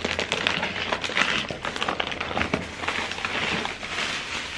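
Plastic packaging crinkling and rustling as hands open and handle a packet, a dense run of crackles.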